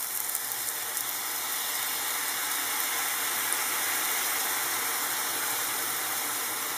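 Honey, cinnamon and water mixture sizzling and bubbling as it hits a hot pan of banana slices frying in coconut oil, a steady sizzle that swells a little a few seconds in.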